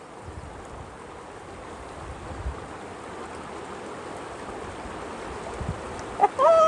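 Rushing water of a small river rapid, a steady hiss that grows slowly louder, with a few low bumps. Near the end a person gives a whooping shout.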